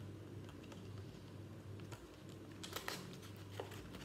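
Faint taps and clicks of fingers pressing and handling a glued paper tube, with a cluster of sharper clicks about three seconds in, over a steady low hum.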